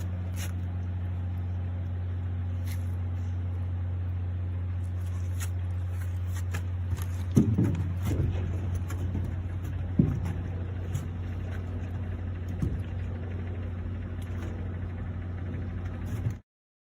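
Fishing boat's engine idling with a steady low hum, with a few knocks at about seven and a half seconds and ten seconds in.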